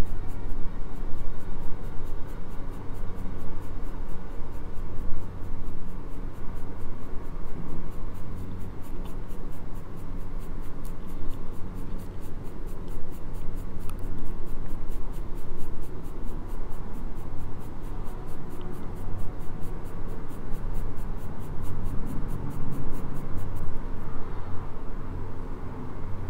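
Graphite pencil rubbing across drawing paper in quick, even back-and-forth shading strokes, about four a second, over a low rumble.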